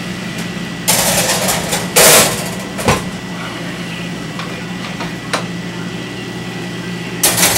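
A kitchen wall oven being opened and worked at: a few clunks and clicks with short rustling bursts, over a steady low hum.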